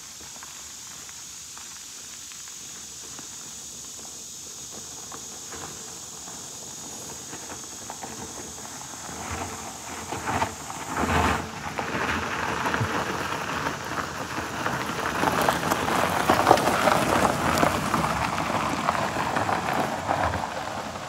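A car's tyres crunching over a loose gravel driveway as it drives up and passes close by, growing louder from about halfway through and easing near the end, with a thump a little after halfway.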